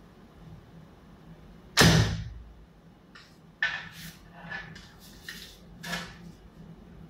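A 60 lb Mariner Spring and Autumn 2 Chinese bow is loosed about two seconds in: one sharp string snap with a short thrum that dies away. It is followed by several softer rustles and clicks as the next arrow is handled and nocked.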